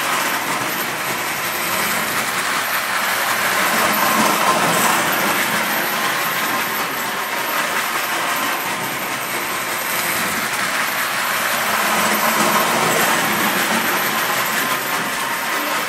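Distler battery-powered H0 tinplate toy train running on metal sectional track: a steady running noise of its small motor and wheels on the rails. It swells a little louder about four seconds in and again about twelve seconds in.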